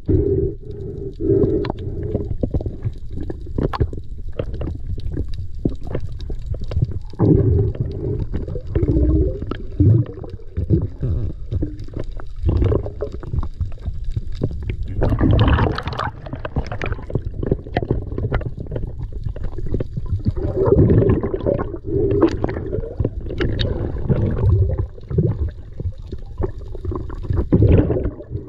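Water noise picked up by a camera underwater: a steady low rumble with recurring gurgling swells and scattered sharp clicks and knocks.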